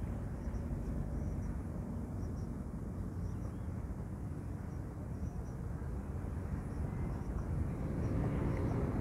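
Pickup truck driving up over rough ground: a low engine and tyre rumble that grows louder near the end as it comes closer.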